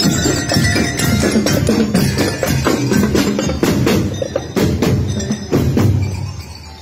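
Marching drum and lyre band playing: metal bell lyres struck with mallets ring out a tune over a steady beat of marching drums and bass drums.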